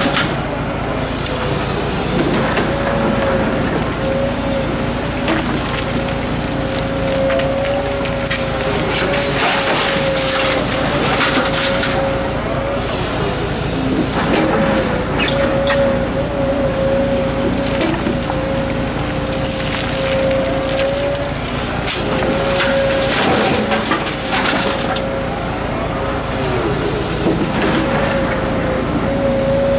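Komatsu PC230-11 hydraulic excavator working: its diesel engine runs steadily under load with a constant whine. Rock and gravel knock and scrape as the bucket swings back and digs into the stony slope.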